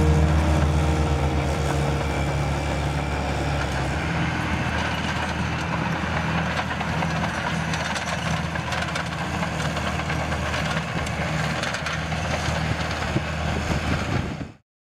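Diesel engine of heavy road-building machinery running steadily at a low, even drone. It cuts off suddenly near the end.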